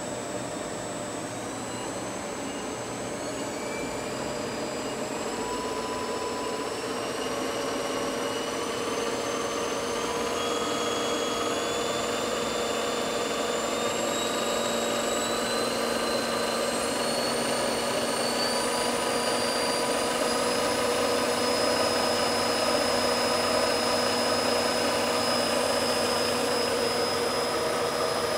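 Kent KTM-5VK CNC knee mill's 5 HP spindle running while its speed is dialed up from about 1500 to over 3000 rpm. Its whine rises steadily in pitch and grows louder.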